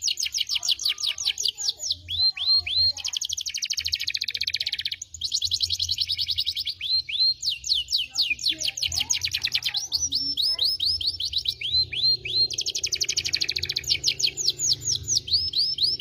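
Domestic canary singing a long, unbroken song: quick runs of down-slurred whistled notes alternating with fast rolling trills, in repeated phrases.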